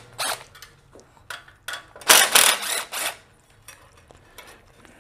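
A cordless power driver runs in short spurts, the longest about two seconds in, backing out the bolts that hold sheet-metal pieces on top of a small engine. Faint metallic clicks follow.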